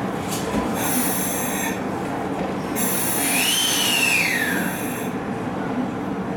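JR Central 383 series limited express train standing at the platform just after arriving, letting out two bursts of compressed-air hiss. During the second burst a whistling tone rises and then falls, over a steady low hum.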